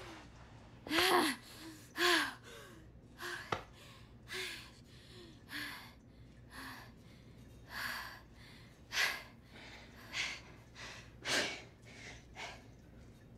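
A teenage girl's heavy breathing as laughter dies away: two louder, partly voiced gasps in the first couple of seconds, then quick out-of-breath breaths about one a second.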